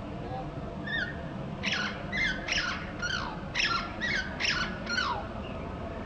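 Russet sparrow chirping: a run of about nine short chirps, each sliding down in pitch, roughly two a second, starting about a second in and stopping just after five seconds. A steady low rumble runs underneath.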